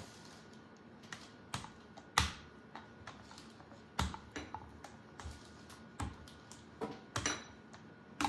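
Rolling pin knocking and clicking against the counter while pie dough is rolled out: a dozen or so irregular sharp knocks, the loudest about two seconds in.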